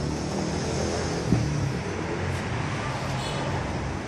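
Steady low background hum and rumble, with one sharp knock a little over a second in.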